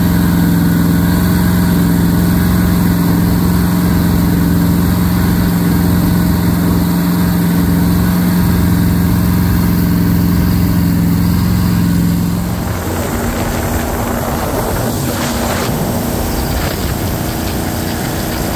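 Jet boat's LS-swapped V8 running at a steady speed while towing, a loud drone held at one pitch. About twelve seconds in, the sound turns rougher and noisier, an engine under way with the rush of water and wind.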